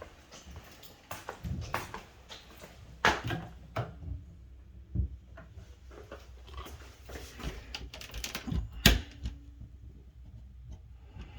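Footsteps and handling noise with scattered sharp clicks and knocks, the loudest about nine seconds in.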